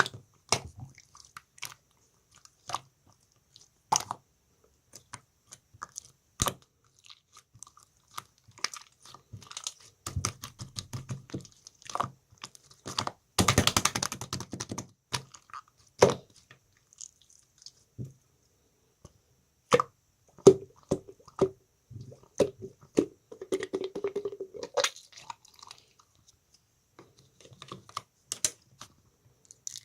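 Slime being squeezed and poked by hand: scattered sticky clicks and pops, with a longer run of dense crackling about halfway through.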